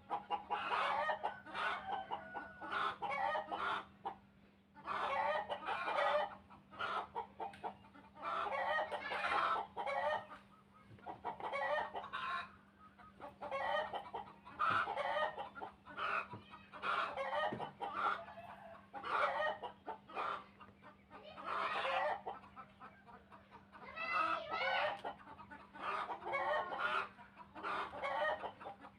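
Chickens clucking and calling in repeated bouts of about a second each, one after another with short pauses, over a faint steady low hum.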